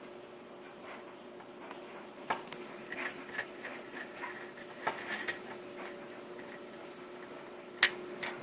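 Light clicks and taps of small parts being handled during case assembly, scattered through the middle, with one sharper click near the end, over a steady low hum.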